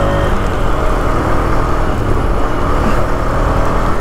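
Motorcycle running on the road with steady wind and road noise buffeting the GoPro's microphone while riding.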